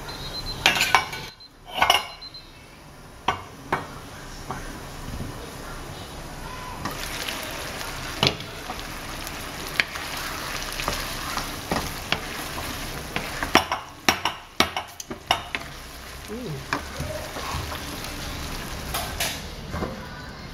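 Wooden spatula stirring chicken and hairy gourd in a wok of sizzling sauce, with sharp knocks and clanks against the pan: a cluster about a second in, more a little past the middle and near the end.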